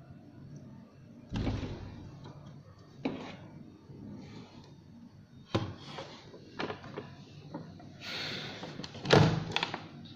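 Plastic housing of a digital weighing scale being handled and turned over: a series of knocks with scraping and rubbing between them, the loudest knock about nine seconds in.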